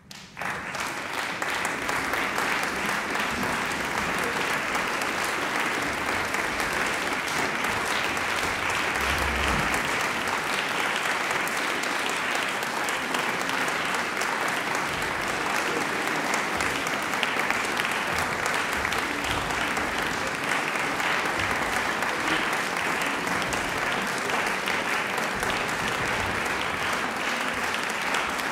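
Audience applauding. It breaks out all at once and then holds steady.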